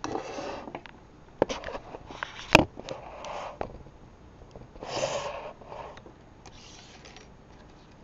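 Close-up handling noise of small metal tools and bobby pins, with several sharp clicks, the loudest about two and a half seconds in, between four short sniffs or breaths near the microphone.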